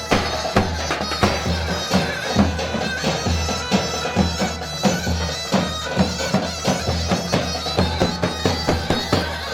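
Live Turkish folk wedding music: a shrill, reedy wind instrument plays a sustained melody over a steady, regular drum beat.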